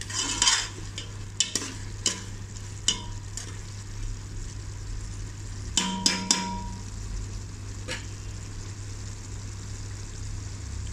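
A metal ladle stirring a thick chana dal and bottle gourd curry in an aluminium pot, with scattered clicks and scrapes of metal on metal and a cluster of louder knocks about six seconds in. A steady low hum runs underneath.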